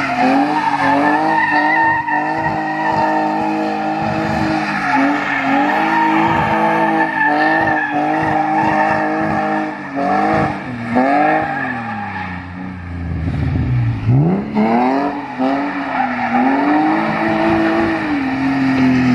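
BMW E46 engine revving hard and held high, with many quick dips in pitch as the throttle is worked. It falls to low revs about thirteen seconds in and climbs again. The tires squeal and skid as the car is slid around in donuts.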